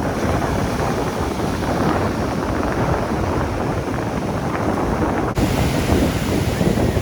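Wind buffeting the microphone over the steady wash of rough surf, with an abrupt cut in the noise about five seconds in.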